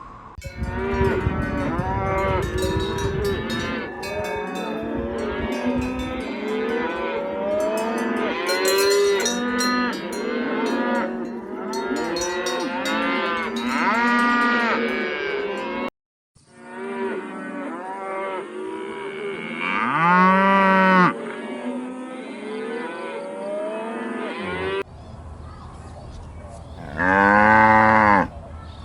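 Cattle mooing: for the first half many calls overlap at once, then after a short break the calls thin out to single loud moos about twenty seconds in and again near the end.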